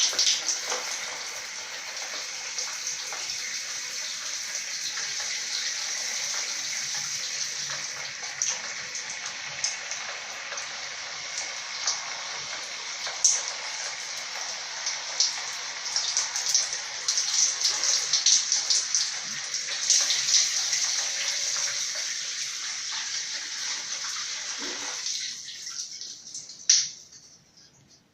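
A shower running: a steady spray of water hissing and splashing, uneven from moment to moment. Near the end the spray dies away, with one last sharp splash, and the water stops.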